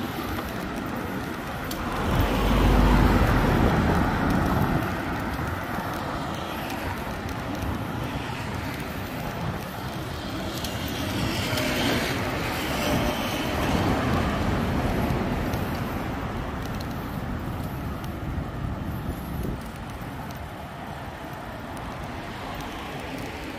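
Busy boulevard traffic with motor vehicles passing, the loudest and deepest pass about two to five seconds in and another swelling past around twelve seconds in.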